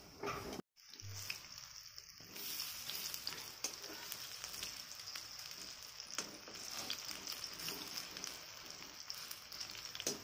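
Spinach pakoras deep-frying in hot mustard oil in a kadhai: a steady sizzle, with light scrapes and taps as a slotted spoon turns them in the oil.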